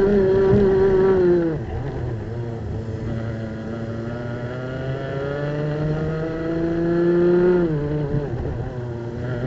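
Two-stroke racing kart engine close up, near full revs at first. It drops sharply as the throttle comes off for a corner, then climbs slowly back up the revs. Near the end it drops again for the next corner and picks up once more.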